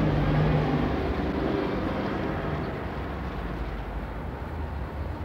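City street traffic noise, with a nearby vehicle engine's low hum that is loudest at the start and fades away over the first few seconds.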